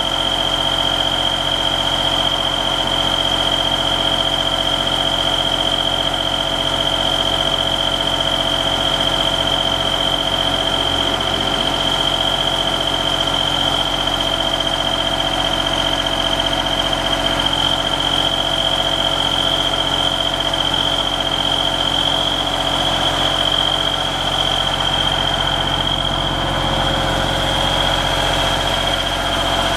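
Deutz diesel engine of a 2006 JLG 450AJ articulating boom lift running steadily while the boom and platform are operated. A steady high-pitched alarm tone from the lift sounds over it.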